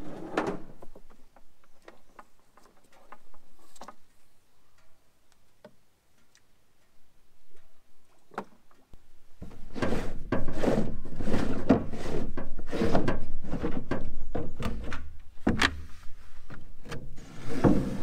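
Scattered faint clicks, then from about halfway a busy run of knocks, thumps and scrapes as a plastic barrel and its lid are handled.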